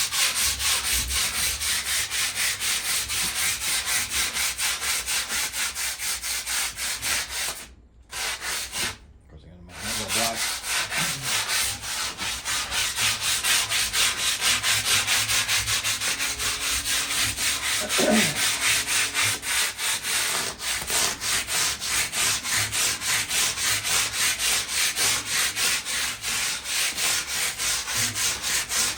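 Sandpaper rubbed by hand over the top of a rusted metal patio table in quick, even back-and-forth strokes, taking off surface rust. The strokes pause for about two seconds around eight seconds in, then carry on.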